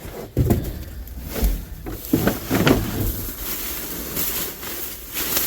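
Irregular rustling, scraping and a few dull knocks of rubbish being handled and shifted while rummaging in a dumpster.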